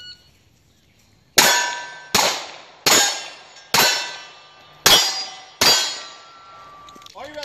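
A shot-timer start beep, then six pistol-caliber carbine shots a little under a second apart, each followed by the ring of a hit steel plate.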